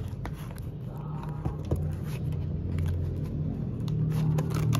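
Background music with sustained low notes, over a few light clicks and scrapes as a plastic twist fastener is turned in the cardboard packaging backing.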